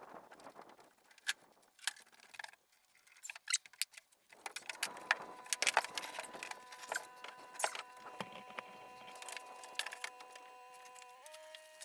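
Scattered light clicks and clinks of hands handling hardware. About four seconds in, quiet background music with held notes fades in under the clicks and shifts chord near the end.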